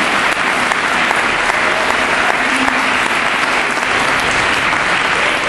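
A crowd applauding steadily, a dense, even clapping that holds at one level throughout.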